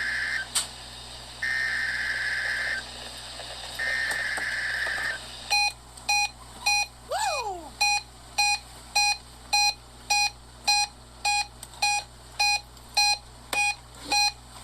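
NOAA Weather Radio SAME header: bursts of warbling digital data tones, each over a second long, the last ending about five seconds in. Then a weather radio receiver's alert beeps steadily, about two beeps a second, signalling that it has picked up the weekly test.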